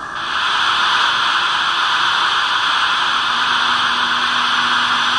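Model steam locomotive's sound decoder giving a steady hiss of steam through its small loudspeaker as the train sets off. The hiss comes on suddenly, and a low steady hum joins about three seconds in.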